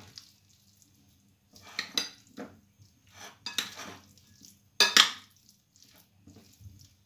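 A metal spoon and a silicone spatula stirring a thick filling in a bowl: irregular scraping and clinking of the spoon against the bowl, with quiet gaps between strokes and the loudest knocks about five seconds in.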